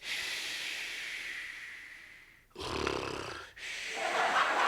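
A man imitating a snore with his voice, a 'special' snore likened to a pressure cooker cooking: a long hissing breath with a faint whistle, a short rumbling snort about two and a half seconds in, then another hiss.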